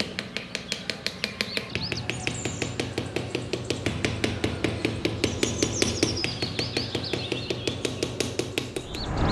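Rapid, evenly spaced knocks, about five a second, with birds chirping high above them.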